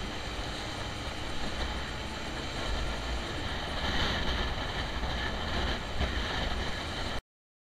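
Yamaha motorcycle riding along a street, heard from a camera on the bike: steady engine, wind and road rumble. The sound cuts off suddenly near the end.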